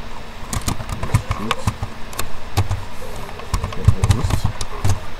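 Irregular keystrokes on a computer keyboard as a command is typed, over a low, uneven background rumble.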